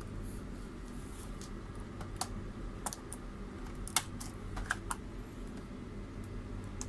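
Light plastic clicks and taps, irregular and scattered, as a Dell Inspiron 3520 laptop keyboard is pushed free of its latches with a small tester screwdriver and handled; a faint low hum runs under them.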